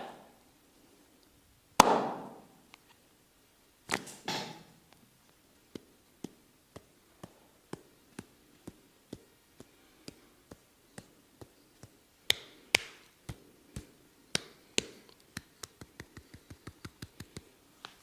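Tok sen massage: a wooden mallet knocking on a wooden wedge. A few loud single knocks come first, then steady tapping about twice a second that turns into a quick patter near the end.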